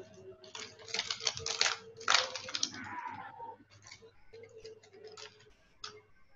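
Irregular light clicks and rattles, densest in the first two seconds and thinning out toward the end.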